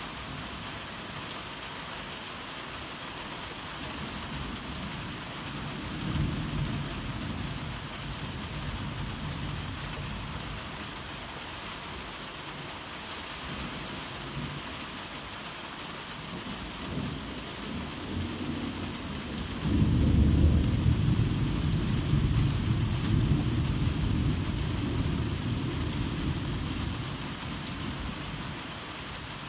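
Heavy rain falling steadily, with rolls of thunder: a rumble about six seconds in, and a louder, longer one starting about twenty seconds in that rolls on for several seconds before fading.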